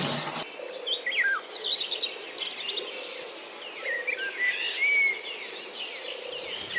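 Woodland ambience: several birds chirping and whistling in short rising and falling calls, over a steady high buzz of insects.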